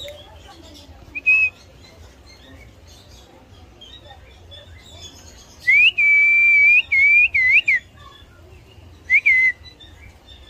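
Indian ringneck parakeet whistling: a short whistle, then a longer two-second whistled phrase with quick upward flicks and glides, then one short falling whistle near the end.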